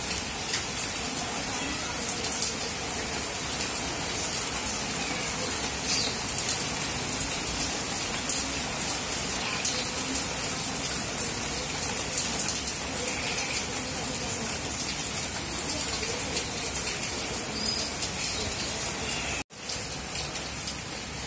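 Steady rain falling, an even hiss with scattered faint drop ticks, broken by a brief dropout near the end.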